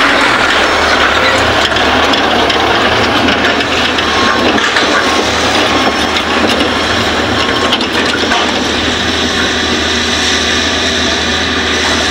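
Hitachi hydraulic excavator loading a dump truck: a steady low engine drone under a dense, continuous grinding rattle of soil and stones.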